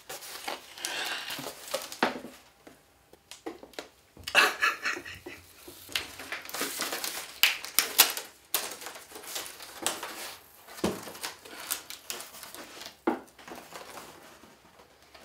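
A folded life-size cardboard cutout being opened out and handled: stiff cardboard rustling, scraping and knocking, with louder knocks about four and eight seconds in.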